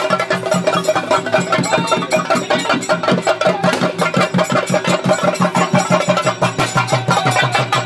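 Theyyam ritual percussion: rapid, continuous chenda drumming with cymbals, over steady sustained tones.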